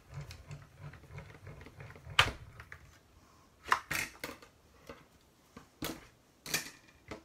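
Hand-cranked Stampin' Up! die-cutting machine pressing a plate-and-die sandwich through its rollers. A low rumbling grind lasts about three seconds, with a sharp knock near its end. Scattered sharp clicks and knocks follow.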